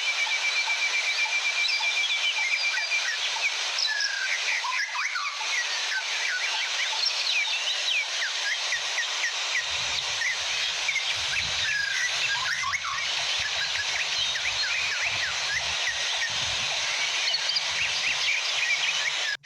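Many songbirds chirping and calling over the steady rush of a small waterfall. A rapid, even high trill runs for the first few seconds, and a faint low rumble joins about halfway through.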